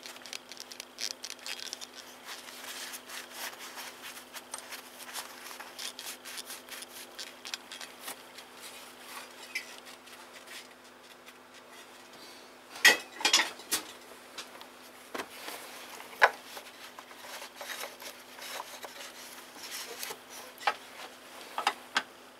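Hand tools and small metal parts being handled during engine repair work: scattered light clinks, taps and rubbing. There is a louder cluster of knocks about halfway through and a few single knocks near the end, all over a steady low hum.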